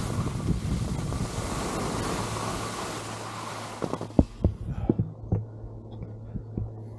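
Wind rushing over a 360 camera's microphone while skiing, dying away about four seconds in as the skier stops. Then several soft, low thumps as the camera and pole are handled.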